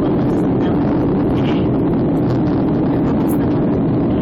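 Steady roar of an airliner's jet engines and rushing air during takeoff, even and unbroken.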